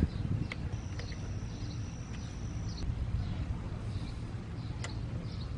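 A few faint clicks of a plastic zip tie being handled and looped around motorcycle frame wiring, over a low outdoor rumble. A thin steady high whine sounds for about two seconds early in the stretch.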